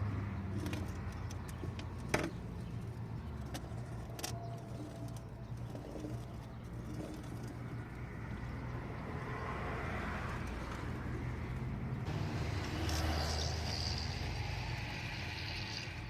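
Steady low mechanical hum with a sharp metallic click about two seconds in and another about four seconds in.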